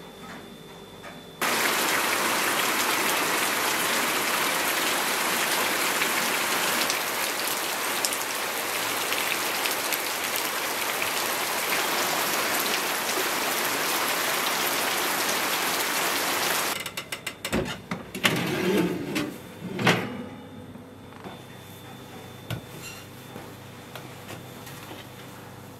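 Steady heavy rain, a loud even hiss that starts and stops abruptly. It is followed by a few clattering knocks from a metal baking tray being handled.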